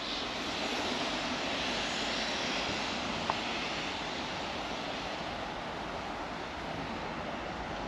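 Steam locomotive of the Jacobite train venting steam: a steady hiss that eases off slightly toward the end.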